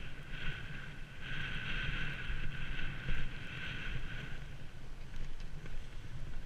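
Snowboard sliding and scraping over packed, tracked snow, with wind buffeting the microphone. The hiss of the board's edge is strongest from about one to four seconds in, then eases.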